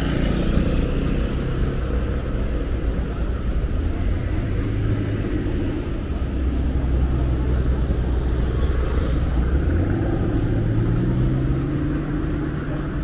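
Street traffic with a motor vehicle's engine running close by, its low note rising about ten seconds in.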